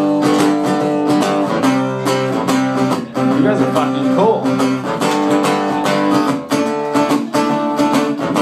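Acoustic guitar strummed live in a steady rhythm, chords ringing between the strokes, with no singing yet.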